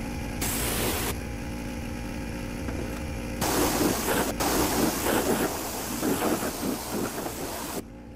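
A pressure washer running steadily while its jet blasts the sheet-metal fender pan of a garden tractor: a short burst of spray about half a second in, then a longer, louder spray from about three and a half seconds that stops shortly before the end.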